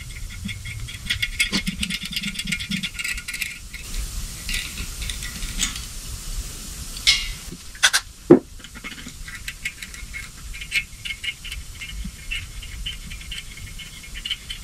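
10-32 hand tap being turned into a cam bearing pin hole of an LS engine block, giving a run of small irregular metal clicks and ticks as it cuts. About seven seconds in, an aerosol can of spray foam lube gives a few short hisses, followed by a brief falling squeak, the loudest moment.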